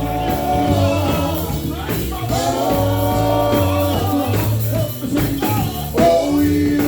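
Live gospel group singing with a backing band, the voices holding long notes over a bass line.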